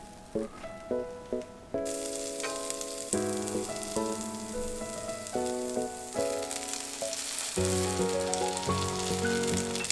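Egg-soaked bread sizzling as it fries in a greased frying pan; the sizzle starts abruptly about two seconds in and then runs steadily, over background piano music.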